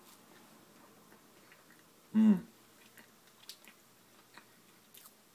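A person biting and chewing a soft chocolate snack cake with cream filling, with faint, quiet mouth clicks. A brief hum from the eater comes about two seconds in.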